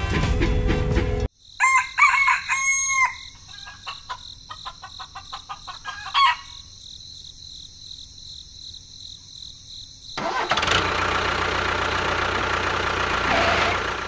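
A rooster crows once, right after music cuts off, followed by a few seconds of short clicks over a steady high whine. About ten seconds in, a loud, even rushing noise starts.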